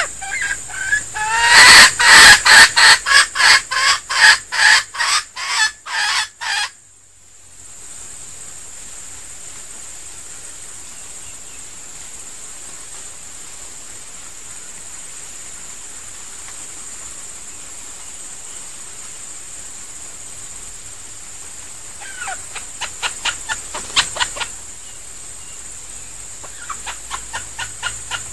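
Red junglefowl decoy rooster (denak) giving a rapid series of short clucking calls, about two to three a second, loud for the first seven seconds. Two shorter, fainter runs of the same calls come near the end.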